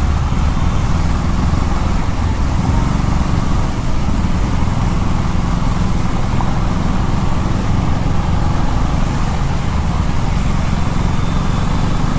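KTM 390 Duke's single-cylinder engine running steadily at low speed in second gear, with tyre and road noise through standing water.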